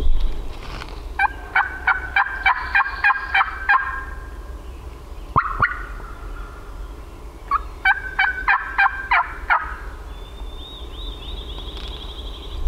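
Hen turkey yelps made on a turkey call: two runs of about ten evenly spaced notes, roughly four a second, with a single note between them. A songbird trills faintly near the end.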